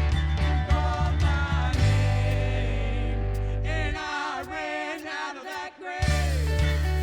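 Band music with singing: a worship song with bass, drums and voices. The bass and drums drop out for a couple of seconds midway, leaving the singing alone, then the full band comes back in.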